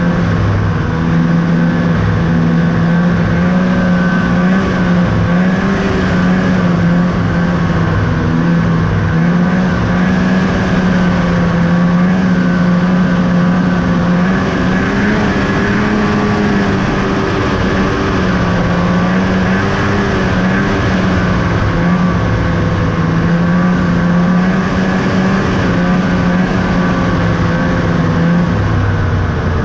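2000 Ski-Doo Summit 800 snowmobile's two-stroke twin engine running hard under way, its pitch easing up and down a little with the throttle.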